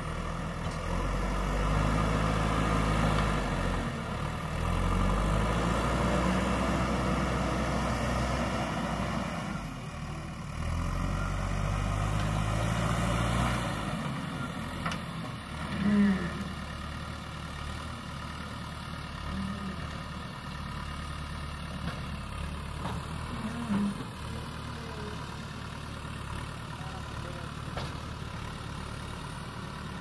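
JCB 3DX backhoe loader's diesel engine working, its pitch rising and falling repeatedly as the machine pushes soil, then running lower and steadier while the backhoe arm loads the dump truck. A short, louder burst comes about halfway through.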